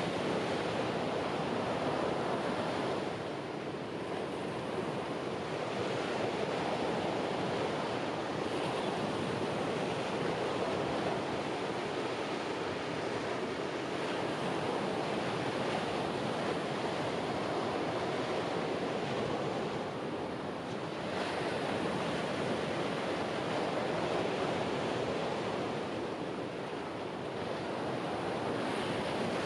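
Ocean surf breaking and washing onto the shore: a steady rush of water that swells and eases every several seconds.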